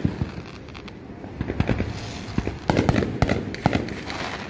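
Fireworks going off: an irregular string of sharp bangs and pops, thicker in the second half.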